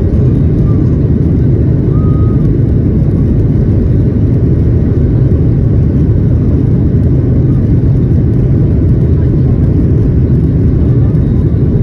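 Steady, loud noise inside the cabin of a Boeing 737-800 from its engines and the airflow, heavy in the low range and unchanging throughout.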